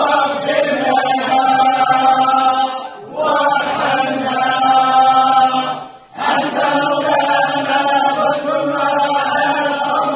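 A group of men chanting together in unison, in long drawn-out phrases that break briefly about three seconds and six seconds in.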